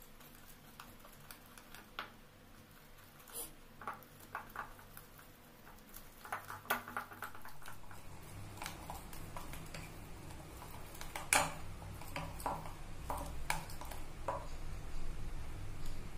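Metal spoon scraping and clinking against a glass bowl while stirring a thick, wet batter into a paste. The clicks are irregular, sparse at first and busier in the second half, with one sharp louder knock a little past the middle, over a low hum.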